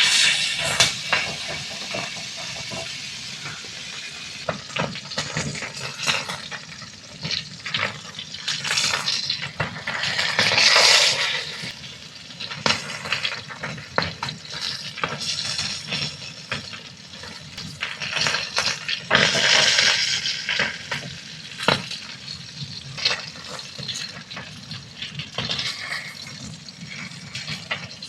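Chicken steak sizzling as it cooks: a steady hiss thick with small crackles and pops, swelling louder twice, about a third of the way in and again near the middle.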